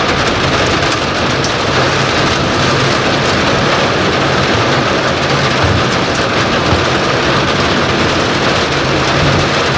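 Heavy rain pouring steadily: a loud, even hiss that does not let up.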